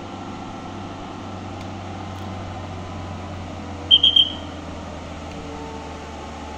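Diesel truck engine pulling up a steep hill, a steady low drone. About four seconds in there are three short high-pitched beeps.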